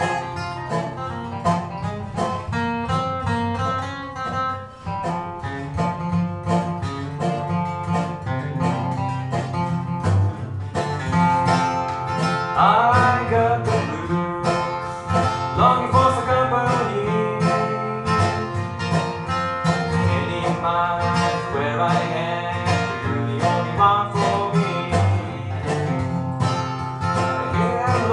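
Live bluegrass on acoustic guitar and dobro: quick plucked notes over a strummed rhythm, with the dobro's sliding notes clearest from about halfway on.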